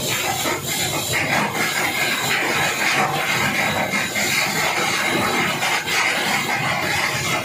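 Steady, loud hissing background noise of an industrial site, with no distinct strokes or tones.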